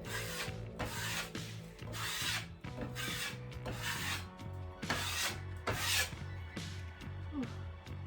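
Steel trowel scraping spackling across drywall in repeated back-and-forth skim-coat strokes, a rasping scrape about every half second to second.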